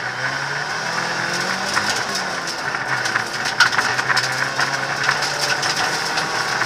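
Hyundai Accent rally car heard from inside the cabin, its engine pulling under load while gravel and stones thrown up by the tyres strike the underbody and wheel arches as scattered sharp clicks and knocks, thickest about halfway through.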